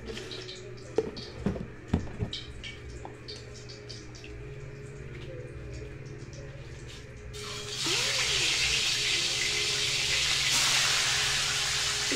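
A few faint clicks and knocks of kitchen handling, then about seven seconds in a loud steady hiss starts suddenly: milkfish pieces beginning to fry in hot oil.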